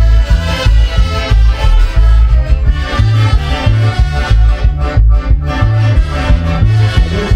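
Band playing upbeat Latin dance music, with a heavy bass line changing notes in a steady rhythm.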